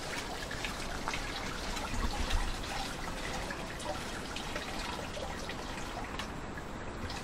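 Water trickling and dripping through a sieve of grated manioc pulp into a basin as the pulp is worked by hand, a continuous patter of small drips.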